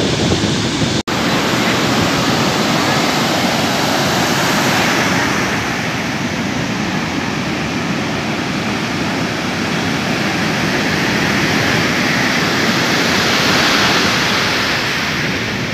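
Ocean surf washing and breaking on a sandy beach, a loud steady rush of noise that swells a little near the end. It cuts out for an instant about a second in.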